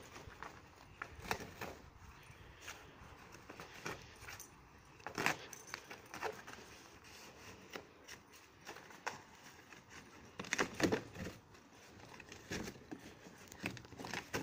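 Corrugated cardboard rustling, scraping and crinkling in irregular bursts as a dog noses, paws and steps through torn, flattened boxes, loudest about five seconds in and again around eleven seconds.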